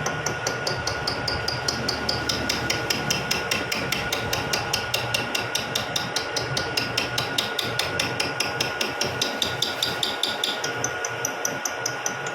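Vertical milling machine cutting gear teeth into a spur gear blank: rapid, even ticking as the cutter teeth strike the work, about six a second, over a steady machine whine.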